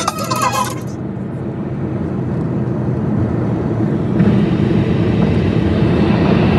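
A car being driven: steady road and engine noise, which grows louder and brighter about four seconds in.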